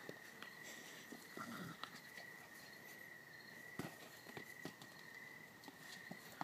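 Crickets chirring steadily in one high, even tone, with scattered soft scuffs and taps from a puppy scrambling after a soccer ball and mouthing it on grass and paving. A sharper thump comes just before four seconds in.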